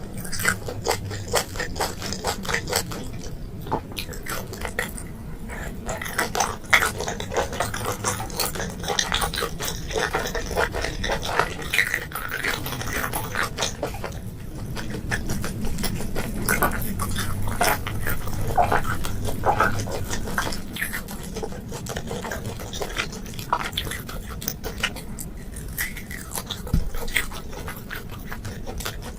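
Close-miked eating of boiled seafood and enoki mushrooms: continuous wet chewing and biting, with many quick irregular clicks and smacks.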